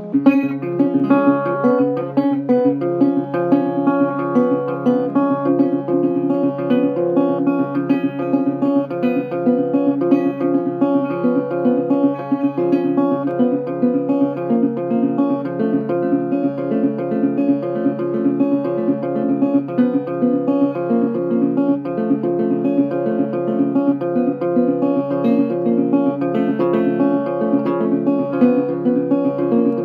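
Instrumental guitar music: a guitar plays a fast, busy run of plucked and strummed notes over a steady quick pulse. The passage comes in sharply at the start and carries on without a break.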